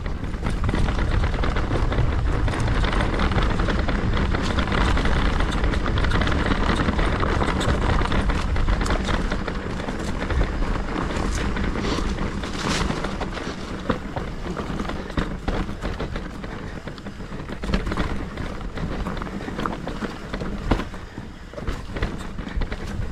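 Mountain bike descending a rough trail: wind buffeting the microphone as a steady rumble, with tyres on dirt and stones and many sharp clicks and rattles from the bike. It is louder for the first half, then eases off with scattered clicks.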